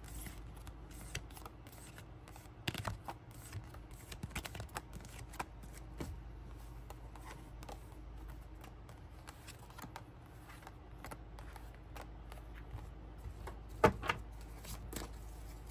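Tarot cards being handled by hand: a deck shuffled and cards dealt out one by one into a spread. It is a soft, irregular patter of card flicks and slides, with a couple of sharper snaps about three seconds in and near the end.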